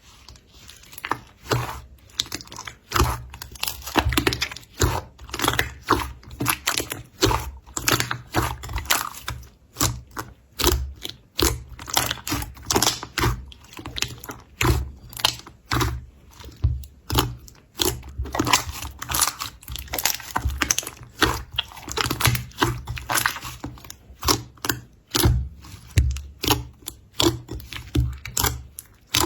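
Crunchy slime being squeezed and pressed by hand, giving dense crackling and popping clicks that come in quick bursts, over and over.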